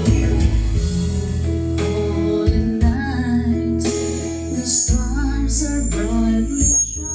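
Music: a carol's intro with sustained bass notes and held chords under a short wavering melody line.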